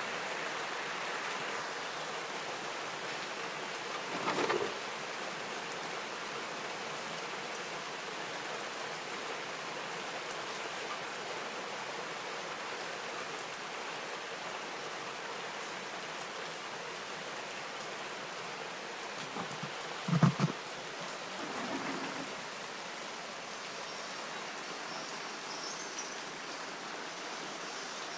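Heavy rain falling steadily on a wooden deck and the surrounding foliage, an even hiss. A short thump sounds about four seconds in, and a louder one about twenty seconds in.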